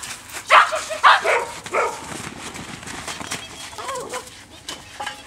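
Small dog barking in short, sharp yaps: four in quick succession in the first two seconds, then a fainter one about four seconds in.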